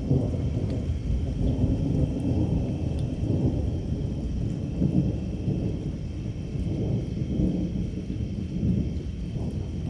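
Thunder rumbling and rolling on without a break, its loudness swelling and easing.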